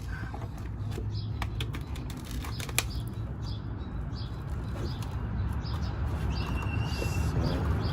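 Handling noise of a subwoofer being pulled apart by hand: scattered clicks and rustling over a steady low rumble, with a sharper click about three seconds in and a short high tone near the end.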